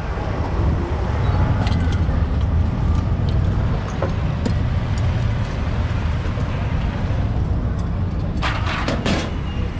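Steady rumble of street traffic with motorbikes passing on the road beside a charcoal fish grill. A few light metallic clicks come from the wire grill baskets being handled with tongs, and a brief hiss comes near the end.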